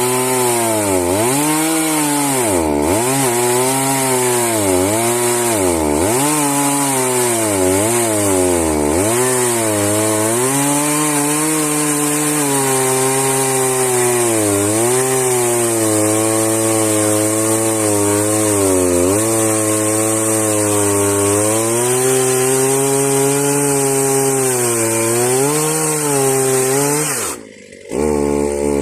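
Chainsaw at full throttle ripping a log lengthwise into a board in an Alaska-style chainsaw mill. Its engine pitch dips again and again as the chain bogs in the cut, deeply at first, then more shallowly. The engine speed falls off abruptly near the end.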